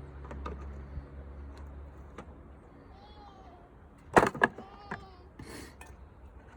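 A cat meowing, short bending calls about three seconds in and again just after four. A pair of sharp clacks just after four seconds are the loudest sounds, and a low steady hum fades out over the first couple of seconds.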